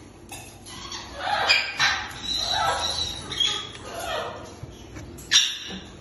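Caique parrots in a nest box giving a string of harsh squawking calls, each about half a second to a second long. A sharp knock comes about five seconds in.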